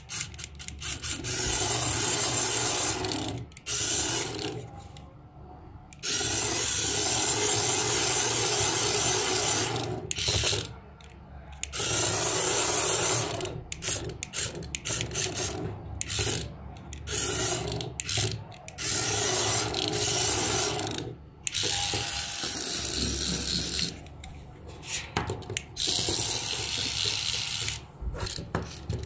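Small electric motor and gears of a remote-control toy praying mantis running as its legs walk. The motor starts and stops in runs from under a second to about four seconds long.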